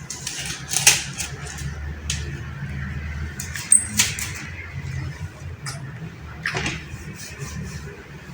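A scatter of small clicks and rustles from objects being handled, with one brief high squeak about four seconds in, over a steady low hum.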